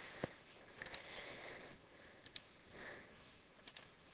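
A handful of faint, sharp computer keyboard and mouse clicks over low room hiss.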